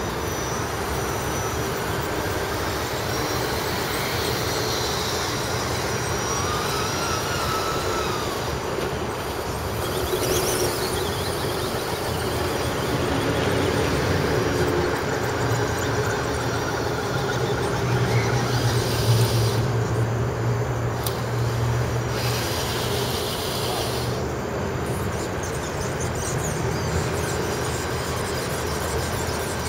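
Steady traffic rumble from the overpass overhead, swelling for a few seconds past the middle, with faint high whines from the electric motors and gears of the 1:10 scale RC crawlers.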